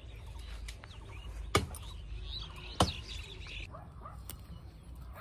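Two sharp chops about a second apart as moringa branches are cut up in the tree, with birds chirping.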